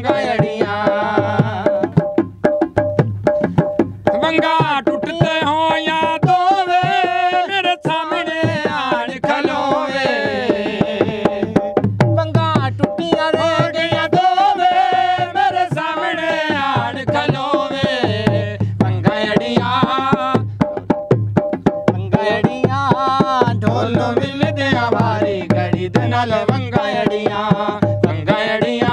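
Folk music: a hand-played dholak barrel drum keeps a fast, steady beat under a wavering, drawn-out melody.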